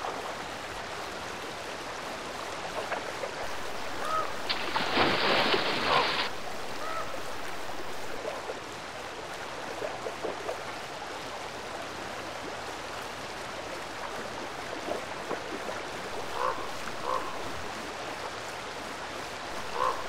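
Fast river water rushing steadily over rocks. About four and a half seconds in, there is a louder burst of splashing lasting under two seconds as a grizzly bear wades through the current. Ravens give a few short calls, scattered and spaced out.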